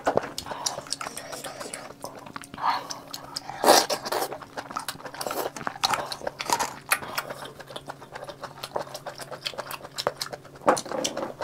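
Close-miked eating sounds: wet chewing and slurping of spicy sea snail meat, with many small clicks and crackles, and a louder burst about four seconds in and again near the end.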